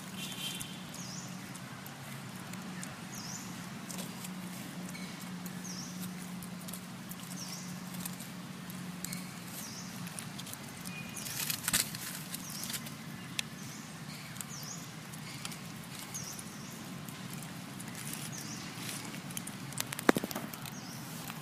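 Dry fallen leaves rustling and crackling as a baby macaque crawls about on them, with a sharp crackle near the middle and a louder click near the end. Under it runs a steady low hum for the first half, and a faint high peep repeats about once a second.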